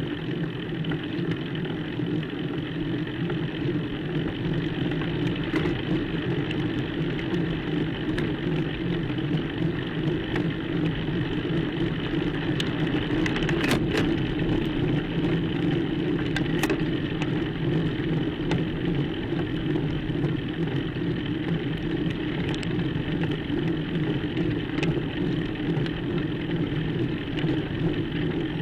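Steady rolling road noise from a bicycle climbing slowly on a rough country lane, recorded from a camera mounted on the bike, with a few sharp clicks, the clearest about halfway through.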